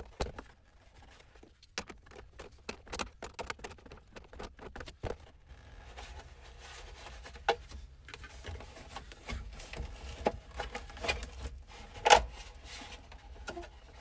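Hand tools and hands working at the under-dash duct box of a 1972 Chevy pickup while loosening a small screw: scattered small clicks, taps and light scraping, with a louder knock about twelve seconds in.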